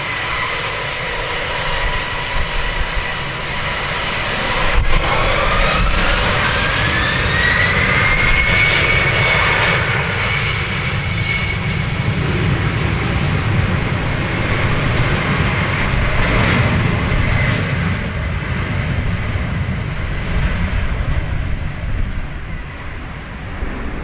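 Embraer ERJ-190's twin CF34 turbofans spooling up to takeoff thrust. About five seconds in, a whine rises in pitch over a couple of seconds and then holds steady over the engines' running noise as the jet rolls down the runway.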